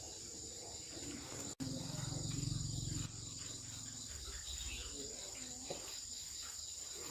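Steady high-pitched chirring of crickets. After a brief dropout about one and a half seconds in, a low hum sounds for a second or so.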